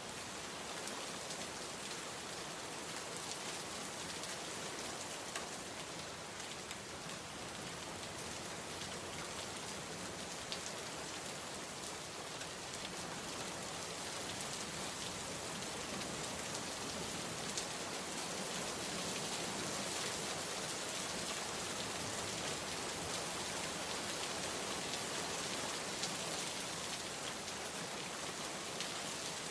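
Steady rain falling on a surface, an even patter with individual drops ticking through it.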